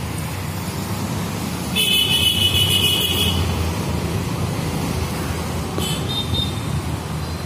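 Road traffic rumbling steadily, with a high-pitched vehicle horn honking for about a second and a half about two seconds in, and a short toot near six seconds.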